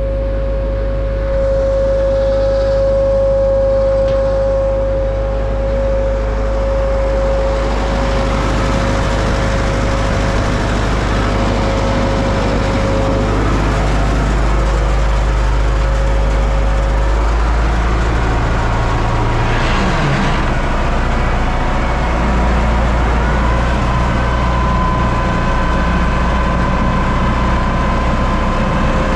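U650 tractor's four-cylinder diesel engine running steadily under load, with a steady whine that fades out about halfway through and a brief falling tone about two-thirds of the way in.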